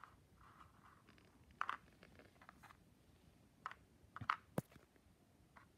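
Faint, sparse clicks and taps of small board-game pieces being handled, a handful in all, the sharpest just past the middle.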